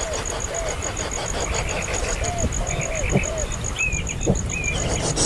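Animal calls: short rising-and-falling calls repeated every half second or so, joined by higher chirps in the second half, over a steady fast-pulsing high trill.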